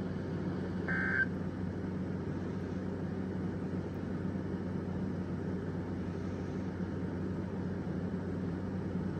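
Weather radio receiver's steady hiss and low hum. About a second in there is one short burst of warbling digital data tones, the SAME end-of-message code of an emergency alert.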